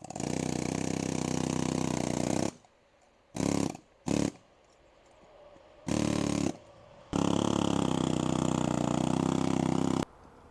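Pneumatic air hammer run in trigger bursts, busting up old fence-post concrete: a burst of about two and a half seconds, two short blips, a brief burst, then a steady run of about three seconds that cuts off suddenly.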